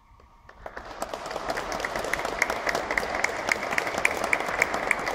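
Audience applauding: the clapping starts about half a second in, builds within a second and then goes on steadily as dense hand claps.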